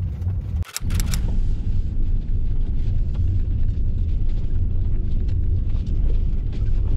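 Wind buffeting the microphone outdoors: a steady low rumble, broken by a brief dip and a couple of clicks about a second in.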